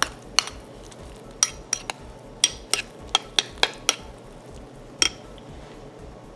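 Metal spoon stirring cooked oatmeal in a ceramic bowl, clinking against the bowl's side in a run of sharp taps. Most of the taps fall between about one and four seconds in, with a last one about five seconds in.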